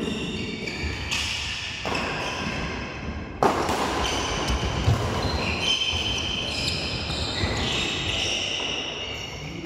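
Badminton shoes squeaking repeatedly on an indoor court floor during a doubles rally, in short high squeals of changing pitch. A single sharp smack sounds about three and a half seconds in.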